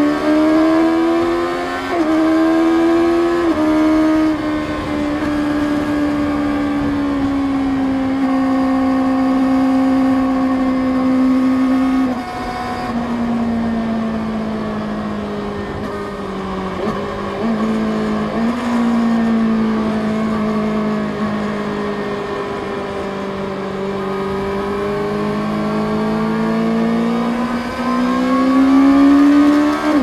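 Kawasaki Ninja ZX-6R's inline-four engine running at road speed, with almost no wind noise. The pitch climbs over the first few seconds with a couple of small breaks, holds fairly steady with small drops and a slow sag, and climbs again near the end.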